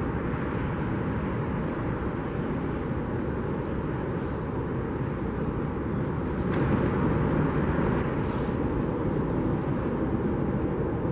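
Boeing 787-8 Dreamliner's GE jet engines running at taxi power as the airliner rolls after landing: a steady jet rumble and hiss mixed with general airport noise.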